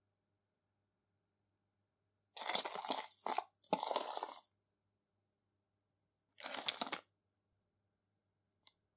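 Metal spoon stirring and scraping a gritty paste of vinegar, salt and flour in a small glass bowl: a crunchy scraping bout of about two seconds with short breaks, then a shorter one about a second and a half later.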